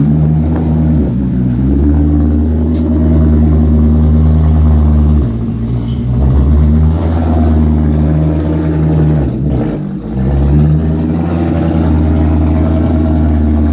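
Maserati engine and exhaust running at steady revs, a deep, even note with several pitches stacked together. The note drops briefly about a second in, again at about five seconds and around nine to ten seconds, then picks back up.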